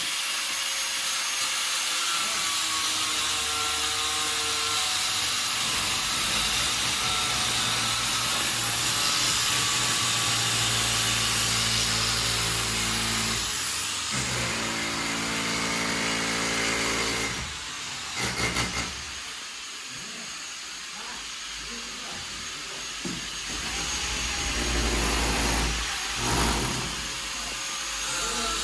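Power drill boring holes, its motor running steadily under load. It eases off about two-thirds of the way through and picks up again near the end.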